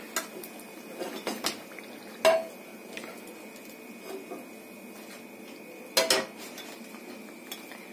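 Metal cookware and utensils being handled: a series of separate clinks and knocks, loudest about two seconds in and again about six seconds in, each with a short metallic ring.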